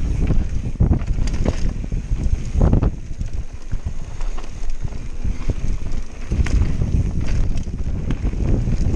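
Mountain bike descending a dirt trail at speed: a heavy wind rumble on the action camera's microphone, with tyre roar and frequent knocks and rattles from the bike over bumps. The rumble eases for a few seconds in the middle, then picks up again.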